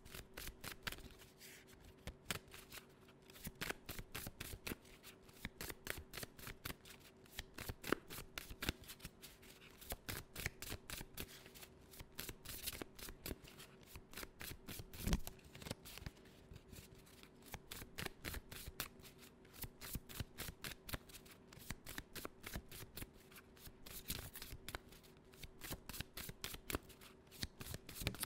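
A deck of tarot cards being shuffled by hand: a steady run of soft, quick card flicks and riffles, with a few sharper knocks now and then, the loudest about fifteen seconds in.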